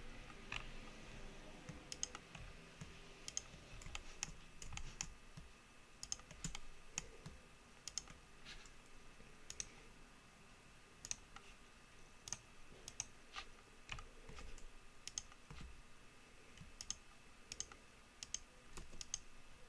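Faint computer mouse clicks and keyboard key presses, irregular and spread through, some clicks in quick pairs, over a low steady room hum.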